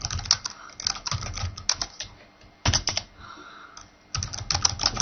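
Computer keyboard being typed on in quick bursts of keystrokes as a command line is entered. There is a run of about two seconds of typing, a short burst near three seconds, and another burst near the end.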